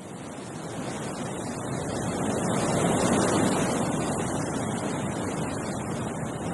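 Wind gusting through a tree, a steady rushing that fades in, swells to its strongest about halfway through, then eases slightly.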